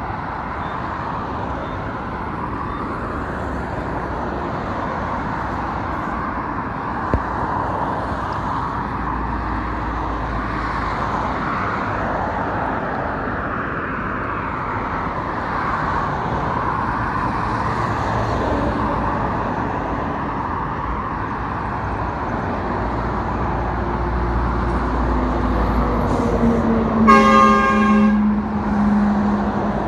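Steady hum of highway traffic, cars passing at speed. Near the end a vehicle horn sounds for about a second, while a passing vehicle's tone falls in pitch.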